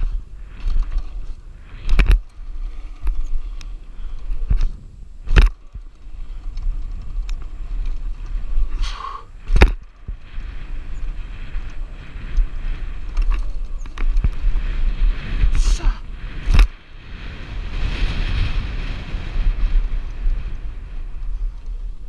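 A bicycle ridden over a dirt pump track, heard from a camera mounted on the rider: steady wind rumble on the microphone and tyres rolling on dirt, broken by sharp clunks and rattles from the bike about five times, with a longer rushing stretch near the end.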